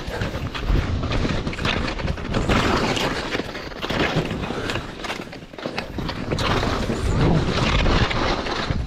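Skis hissing and scraping over snow during a downhill run, mixed with wind buffeting the microphone, swelling and fading unevenly with a heavy low rumble.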